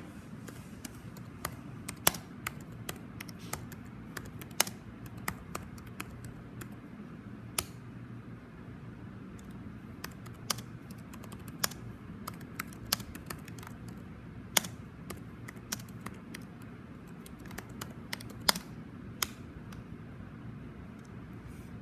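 Computer keyboard being typed on: irregular keystroke clicks, a handful much louder than the rest, over a steady low background hum.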